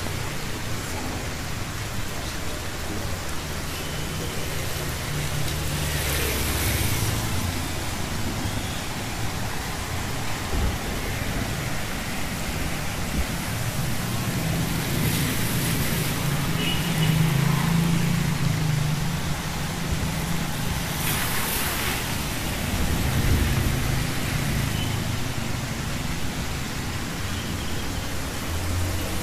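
Steady rain on a wet street, with cars and motorbikes driving past, their engines humming and their tyres hissing through the water. Three louder tyre swishes stand out, the last about two-thirds of the way in.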